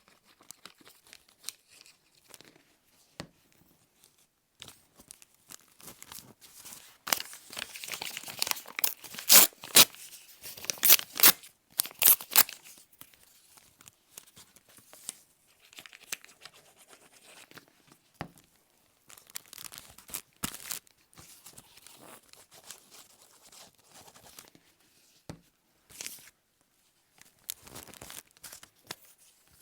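Paper being torn and crinkled by hand, in scattered rustles with a busier, louder run of sharp rips a quarter to two-fifths of the way in.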